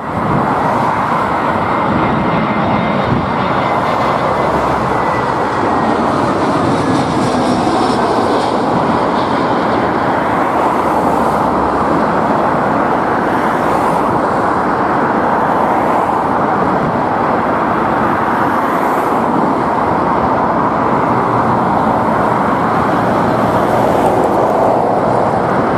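Airbus A320-214's CFM56 jet engines on approach and landing: a loud, steady jet noise with a faint high whine that falls slightly in pitch over the first several seconds.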